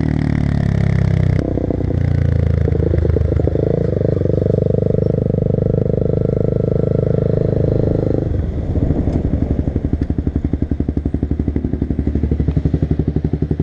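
Sport motorcycle engine slowing down, its pitch falling during the first second or so, then running at low revs. From about eight seconds in it settles into an idle with a steady pulsing beat.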